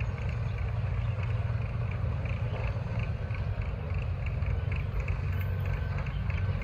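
Chinese-built ZCU-20 diesel-electric locomotive running at speed as it approaches with an express train: a steady low rumble that edges louder near the end.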